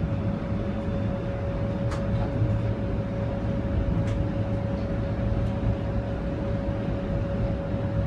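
Onboard sound of a Bombardier Flexity streetcar: a steady low rumble with a constant mid-pitched whine that holds one pitch, and a few faint clicks.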